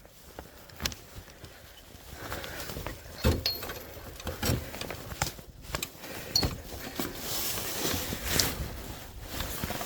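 Irregular knocks and rustling of someone moving about in an attic: steps and bumps against wood, with clothing rubbing on a chest-worn camera.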